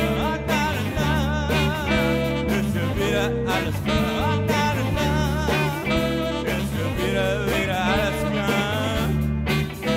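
Background music: a song with a singing voice over sustained bass notes.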